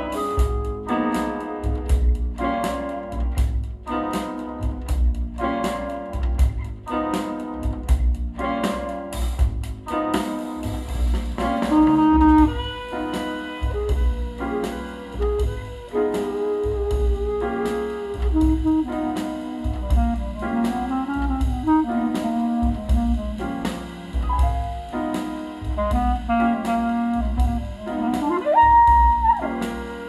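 Jazz track played through Cube Audio Jazzon full-range loudspeakers driven by a single-ended tube amplifier fitted with 300B valves. It opens on rhythmic piano chords over a strong bass, and from about ten seconds in a saxophone carries the melody over piano, bass and drums.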